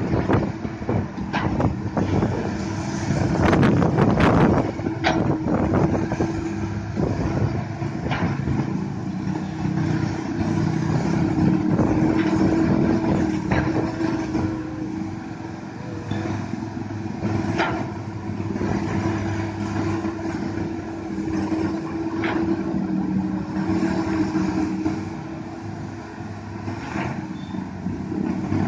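Komatsu PC200 hydraulic excavator's diesel engine running steadily as the bucket digs, with clatters and knocks of soil and rock against the bucket. The knocks come thick in the first few seconds, then singly every few seconds.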